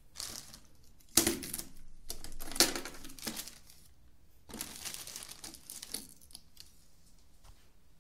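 Crinkling and rattling of handled plastic, in several bursts of about a second each, with sharp clicks in them.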